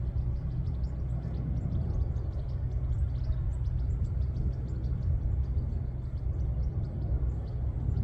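Steady low outdoor rumble with many short, high-pitched chirps scattered over it.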